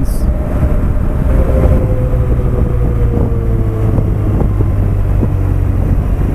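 Motorcycle engine running while riding, with wind buffeting the helmet microphone; the engine note drops slowly in the middle as the bike eases off.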